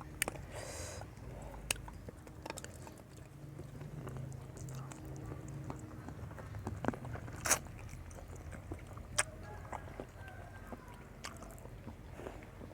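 A person chewing and biting food, with a few sharp crunches scattered through.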